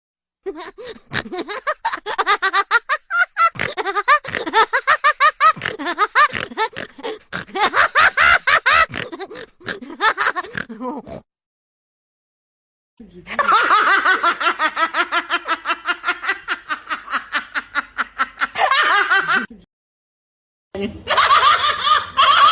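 Recorded laughter sound effects: hearty, cackling laughter in quick ha-ha-ha pulses, one clip running about eleven seconds, then a short silence, a second clip of fast, even, high-pitched laughing, another gap, and a third laugh starting near the end.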